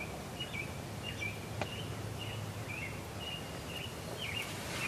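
A songbird calling in a string of short high chirps, two or three a second, over a steady low outdoor hum. A single sharp click about one and a half seconds in.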